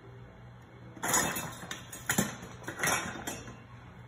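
Kitchen clatter: utensils and dishes clinking and knocking several times, starting about a second in.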